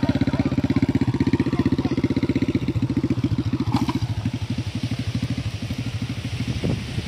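Small old motorcycle engine running at low revs with a rapid, even exhaust beat, easing off a little about three seconds in.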